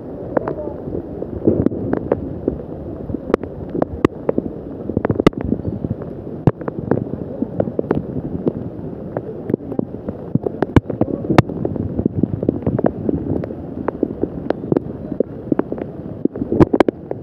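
Outdoor microphone noise on a handheld phone in wet weather: a steady rushing hiss with frequent sharp crackles and clicks, such as raindrops and wind hitting the mic make, over faint voices.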